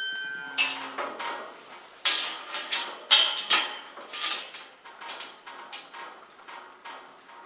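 Irregular clattering and knocking of hard objects being handled, several sharp knocks with the loudest about three seconds in, thinning out toward the end.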